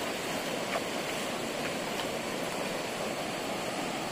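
Steady rush of river water flowing, with a few faint splashes from hands being washed in it.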